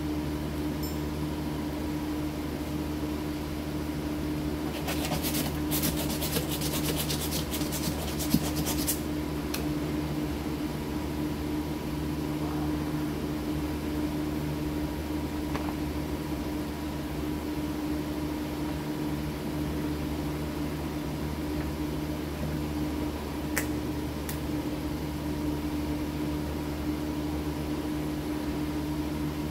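A steady mechanical hum, like a shop fan running, with several seconds of rapid scratchy clicking about five seconds in and two single clicks later on.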